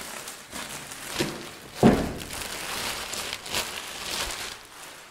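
Plastic film being pulled and crumpled off a cardboard box: irregular rustling and crinkling, with a sharp thump against the box about two seconds in.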